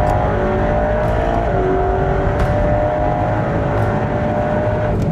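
Sports car's combustion engine running hard under throttle, with a steady engine note that rises and dips slightly, driven with the traction control switched off.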